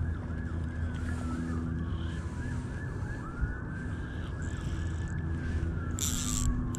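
A distant emergency-vehicle siren, switching between a rapid up-and-down yelp and slow falling wails. A brief hiss comes about six seconds in.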